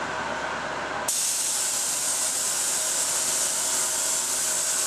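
HVLP spray gun, fed from an air compressor's tank, spraying urethane finish: a steady, loud air hiss that switches on about a second in and holds, over a steady hum.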